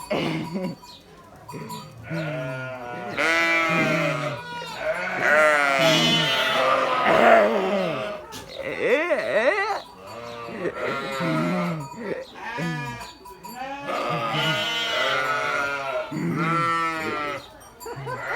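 Several sheep bleating, their calls coming one after another and often overlapping, each a quavering baa with a wavering pitch.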